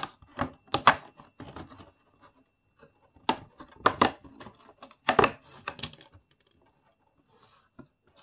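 LEGO advent calendar being opened and its contents handled: irregular sharp clicks, tearing of cardboard and crinkling of packaging for about six seconds, then only a few faint ticks.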